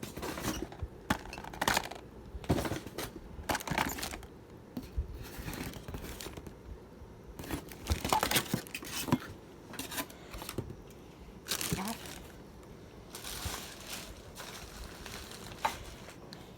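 Packaging being handled during an unboxing: irregular crinkling, rustling and tearing, with scattered light knocks of parts being moved.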